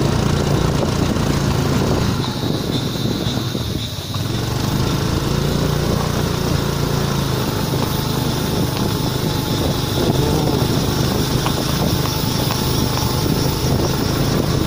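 Honda Activa scooter riding along, its small single-cylinder engine running steadily under wind and road noise. The engine eases off briefly a couple of seconds in, then pulls on steadily again.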